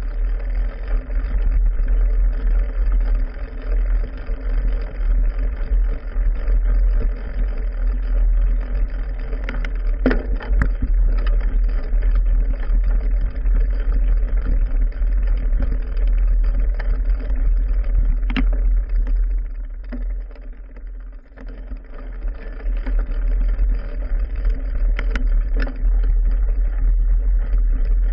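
Mountain bike ridden slowly over rough trail, heard through a handlebar-mounted camera: a steady low rumble of vibration with occasional knocks, easing briefly about two-thirds of the way through.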